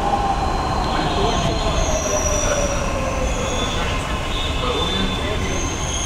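Mumbai Metro train heard from inside the car while running: a steady rumble with a whine that slowly falls in pitch, and thin high squeals coming in from about a second and a half in.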